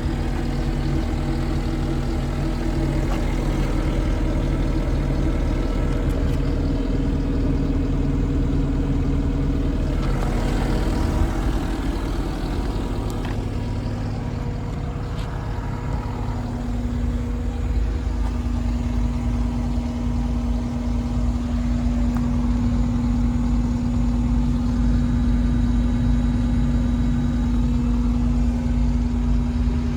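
Diesel engine of a 2020 Takeuchi TL10V2 skid steer running steadily. Its pitch shifts about a third of the way in and again about halfway, then holds steady.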